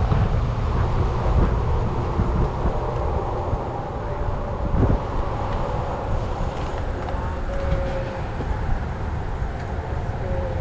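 Wind buffeting the microphone: a steady, loud low rumble with rustling noise above it.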